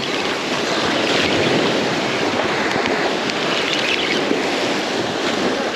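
Sea waves washing against jetty rocks: a steady rushing that swells a little twice, with wind buffeting the microphone.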